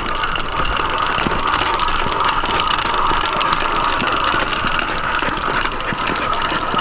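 Stock 66cc two-stroke motorized-bicycle engine running steadily and loudly, sounding like a locomotive.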